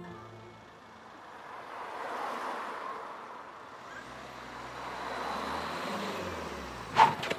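Street traffic noise with a car engine approaching and its note falling as it slows, followed by a few sharp knocks near the end.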